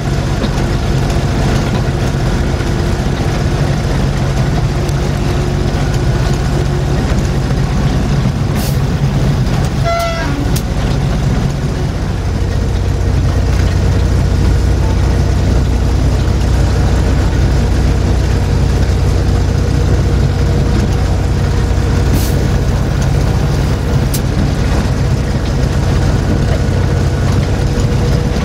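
Electro-Motive diesel-electric locomotive running under way, heard as a loud, steady engine drone in the cab. About twelve seconds in the drone drops deeper and grows slightly louder as the engine load changes, with the throttle being worked. A short pitched tone sounds near the ten-second mark, and a few sharp clicks come through.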